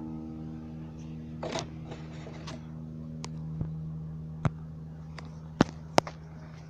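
A nylon-string classical guitar's last chord rings out and slowly fades with no new notes. Over it come a few scrapes and then sharp clicks and knocks, two of them loud near the end, as the recording phone is handled and moved.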